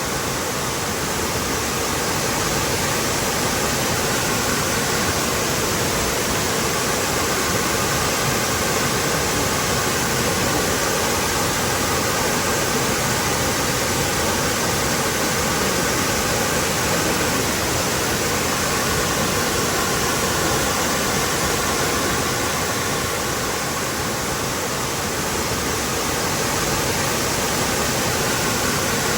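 Waterfall pouring, a loud, steady rush of falling water with no breaks.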